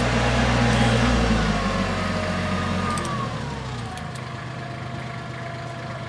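Compact tractor engine running as the tractor drives up, growing quieter over the second half, with a whine that falls in pitch between about two and four seconds in.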